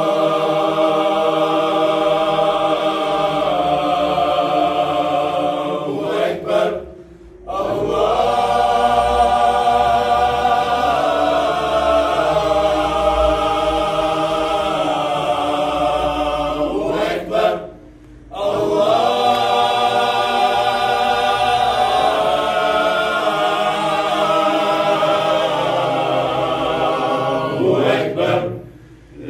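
A group of voices chanting together in long, drawn-out phrases of about ten seconds each, with a short pause for breath between phrases.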